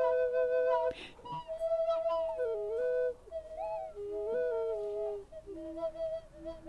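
Paiwan double-pipe nose flute playing two tones at once: one pipe holds a steady note while the other moves slowly between pitches. The playing breaks off about a second in and goes on more softly from about three seconds in.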